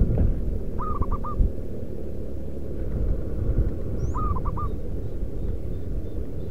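Zebra dove cooing twice, each call a quick run of about four short, clipped notes, the second call about three seconds after the first, over steady low background noise.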